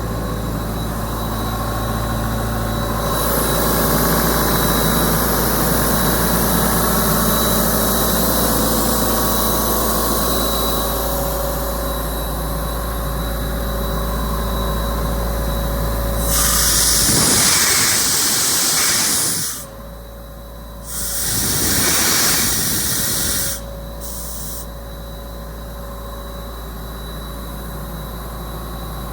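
1998 Ingersoll-Rand 185 portable air compressor running, its engine humming steadily under a hiss of air. About sixteen seconds in, compressed air blows off loudly twice, each blast lasting two to three seconds with a short break between, and then the hiss settles lower.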